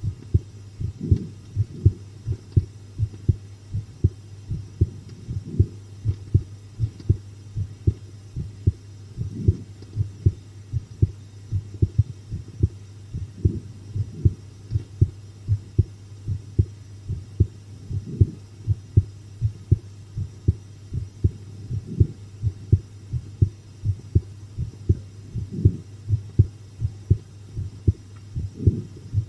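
A human heartbeat: steady, regular deep double thumps (lub-dub), muffled with nothing above the low range, over a constant low hum.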